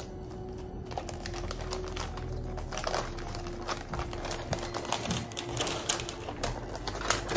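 Gift wrapping paper being folded and creased around a small box: a run of light crinkles and clicks.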